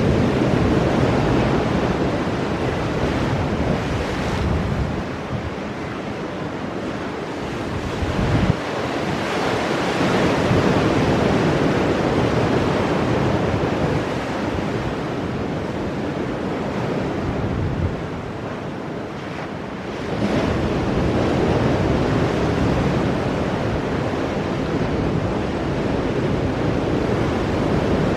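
Ocean waves breaking on rocks: a continuous rushing wash that swells and ebbs, with a sharp crash about eight seconds in and a fresh surge about twenty seconds in. Wind buffets the microphone.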